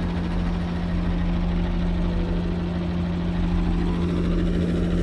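Shuttle bus engine idling, a steady low hum with a low rumble underneath.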